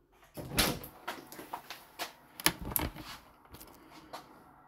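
A run of irregular knocks and clicks, handling noise, loudest about half a second in and again about two and a half seconds in.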